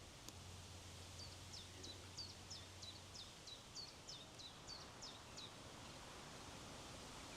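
A small songbird singing a faint run of about a dozen short, high, falling notes, about three a second, over a soft steady wind hiss.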